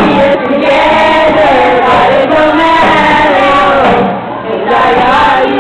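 A group of young people singing together to a strummed acoustic guitar, the voices dropping off briefly about four seconds in before picking up again.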